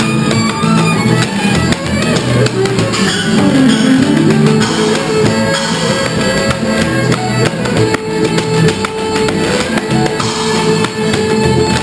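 An old-time string band plays a tune: fiddle melody over banjo and upright bass, with a washboard scraped and struck and cymbals keeping the beat.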